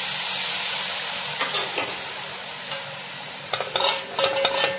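Dry red wine sizzling as it hits a hot pan of browned butter-flour roux and fried mushrooms, a steady hiss that slowly dies down. From about three and a half seconds in, a wooden spoon scrapes and clacks against the metal pan as the sauce is stirred.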